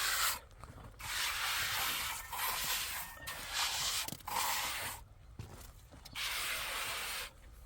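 A series of scratchy scraping strokes, each about a second long, with short pauses between them.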